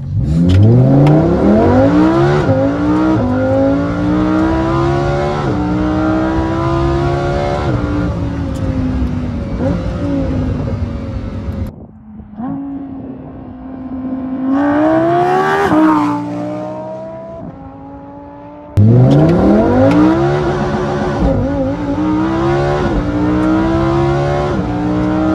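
Lamborghini Huracán EVO's V10 through a Tubi Style aftermarket exhaust, launched at full throttle from a standstill: the engine note climbs and drops back at each quick upshift. About halfway it is heard from the roadside, rising as the car accelerates up and passes by, then a second hard launch from inside the cabin with the same rising pitch and upshifts.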